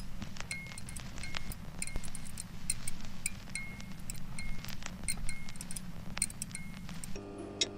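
Irregular light clinks, about one or two a second, several of them followed by a brief high ringing tone, like small chimes. Shortly before the end, a steady hum of several tones comes in with sharp ticks.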